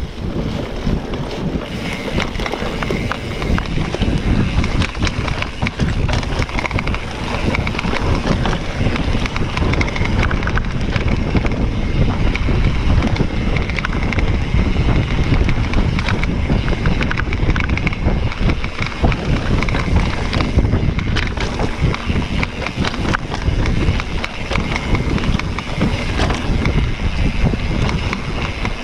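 Mountain bike riding a forest trail with wind buffeting the camera's microphone: a steady low rumble with frequent small clicks and rattles from the bike over rough ground.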